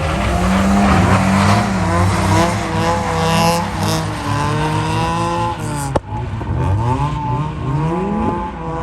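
Car engine revving hard up and down again and again as a car is drifted on snow, with a brief break about six seconds in.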